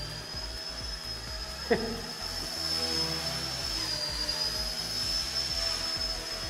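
Small electric RC helicopter flying, its motor and rotor giving a steady high whine that dips slightly in pitch and recovers about four seconds in. A single sharp click about a second and a half in.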